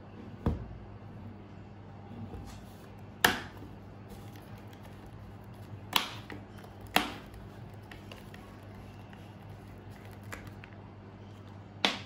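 Sharp knocks and clicks of a white plastic screw-cap bottle being handled and set on a desk, about five in all, the loudest about three seconds in; the last one, near the end, comes as the ribbed cap is gripped to be twisted open. A low steady hum runs underneath.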